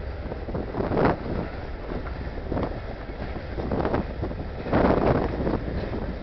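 Covered hopper cars of a freight train rolling past: a steady rumble of steel wheels on rail, swelling louder about a second in and again, most strongly, around five seconds in.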